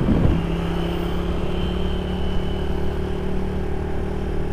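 Motorcycle engine running steadily at cruising speed, heard from on the moving bike, with road and wind noise underneath.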